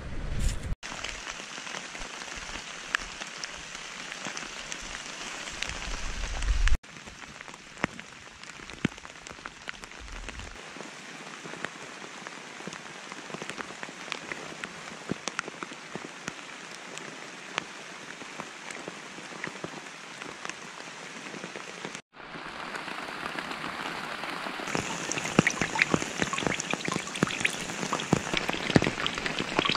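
Steady rain falling in woodland, many single drops ticking through a constant hiss, broken by a few abrupt cuts. In the last few seconds it grows louder, with heavier drips as rainwater runs off a poncho into a metal pan.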